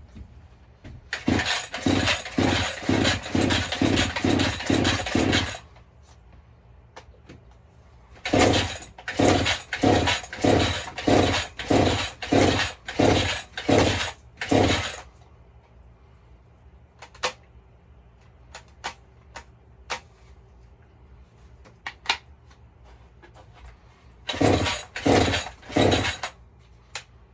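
Two-stroke chainsaw being pull-started without catching: three runs of quick, repeated starter-rope pulls, each a short rasping whir at about two a second. Between the runs there are a few scattered clicks. The owner blames a bad spark plug for the saw not starting.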